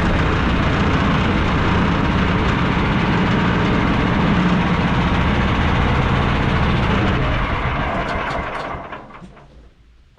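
Woodland Mills bandsaw mill running steadily through a red cedar log, then winding down between about eight and nine and a half seconds in, followed by a few light clicks.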